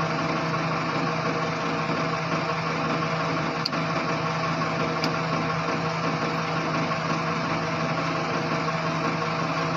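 Road roller's engine running steadily at an even speed.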